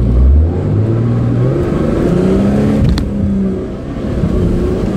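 Nissan GQ Patrol's engine working hard under load as the four-wheel drive climbs a steep rocky slope, its pitch rising about two seconds in and then holding. A single sharp knock comes about three seconds in.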